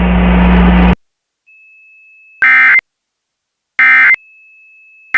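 Hiss with a steady low hum cuts off about a second in. Then come the Emergency Alert System end-of-message tones: short digital data bursts about 1.4 s apart, two in full and a third starting right at the end, marking the close of the alert.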